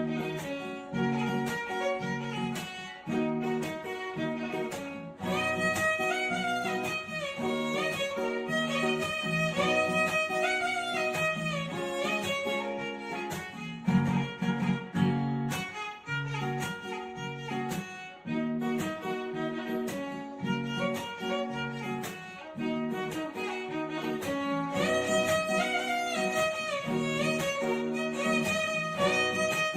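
Instrumental background music: a held, sliding melody line over a repeating low accompaniment.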